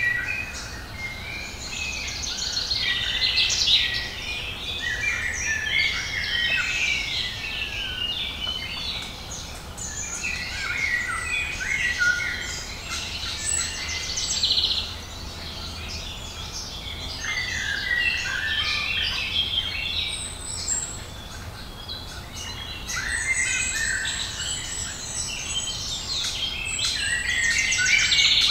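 A chorus of several songbirds singing at once in spring woodland: overlapping trills, chirps and whistled phrases that go on without a break.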